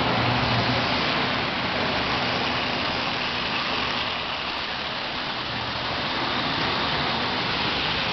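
Marx toy trains running on three-rail O-gauge track: a steady rumble and whir of wheels and motors, with a low hum underneath.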